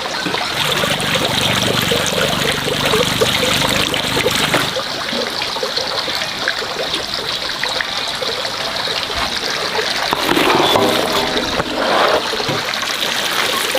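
Water running steadily, with trickling and splashing.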